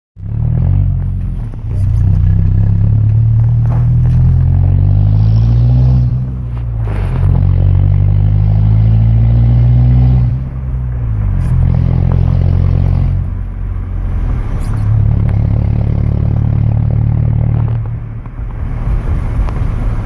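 Exhaust of a 1997 Ford Ranger's 2.3-litre four-cylinder engine with the muffler deleted, running loud and low, its pitch climbing and then dropping back several times as the engine is revved or taken up through the revs.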